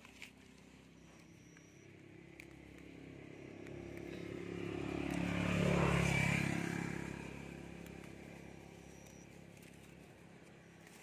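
A motor vehicle passing by on a nearby road. Its engine swells from about two seconds in, is loudest near the middle, then fades away.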